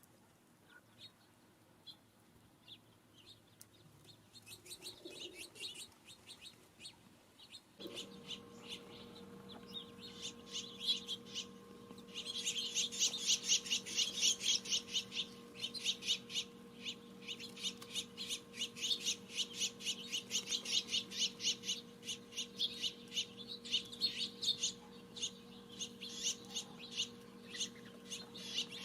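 A flock of small songbirds chirping and chattering in rapid, overlapping calls, several a second, thickening a few seconds in and loudest around the middle. A steady low hum made of a few even tones comes in suddenly about eight seconds in and holds.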